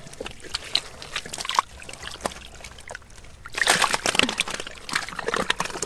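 Muddy water sloshing and splashing as a hand gropes in a small flooded hole, with a denser burst of splashing about three and a half seconds in.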